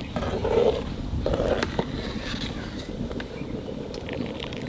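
Long metal ladle stirring rice and lentils through boiling water in a large aluminium pot, with swishing and a few light clicks and knocks of metal on the pot.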